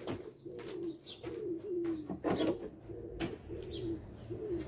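A pigeon cooing over and over, a low hooting phrase repeated about twice a second, with a couple of sharp knocks about two and three seconds in.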